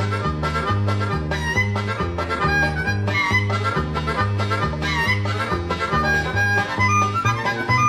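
Instrumental background music: a harmonica lead over a steady bouncing bass line of about two notes a second.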